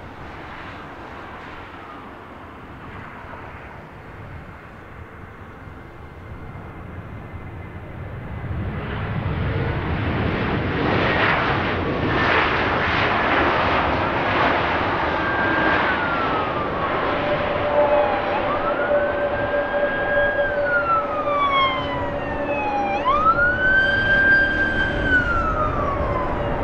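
Jet airliner engine noise swelling louder about a third of the way in. Over it in the second half, a siren wails, rising and falling slowly several times.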